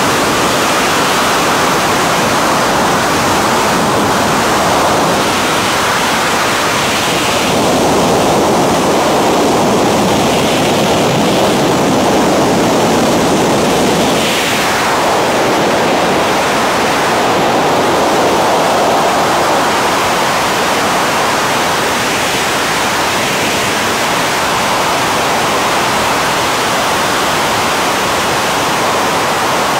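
Loud rushing wind over the microphone of a camera flying with wingsuit flyers. It is a steady roar of airflow that swells and shifts in tone now and then, with a brief swoosh about halfway through.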